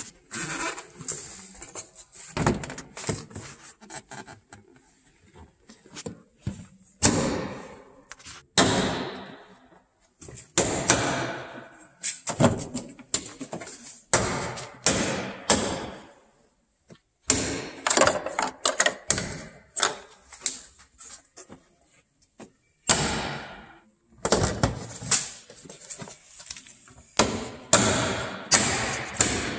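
Hard plastic rear bumper cover of a Toyota RAV4 being pushed and knocked into its retaining clips along the body and wheel arch. It makes a string of sharp plastic knocks, snaps and rattles in irregular clusters.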